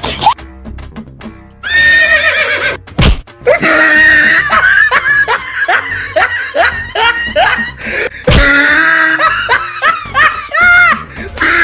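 Edited-in comedy music and cartoon sound effects with canned laughter. There is a sharp hit about three seconds in and another a little past eight seconds, with runs of rising, sliding tones between them.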